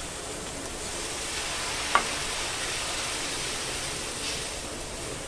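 Hot sauce sizzling steadily in a non-stick frying pan as water is poured in, with a wooden spatula stirring it. One sharp knock about two seconds in.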